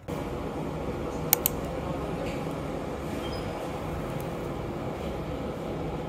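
Steady low background rumble of a small restaurant's room, with a faint steady hum and two short clicks about a second and a half in.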